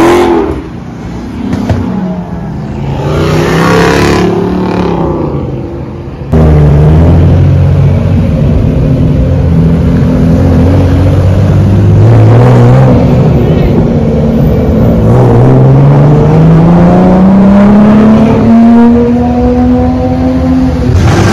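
Car engine sound passing close by, then after an abrupt cut a loud engine running steadily, its pitch climbing slowly as the car accelerates.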